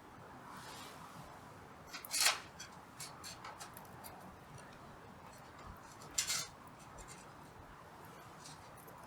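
Small hard objects being handled: scattered light clicks, with two louder sharp clinks and scrapes about two and six seconds in.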